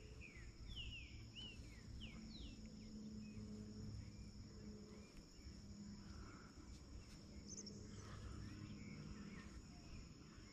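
Faint riverside ambience: a steady high insect drone, with a bird giving a quick run of short chirps in the first couple of seconds.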